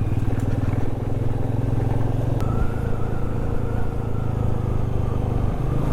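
Motorcycle engine running steadily while riding. Its note shifts slightly about two and a half seconds in and again near the end.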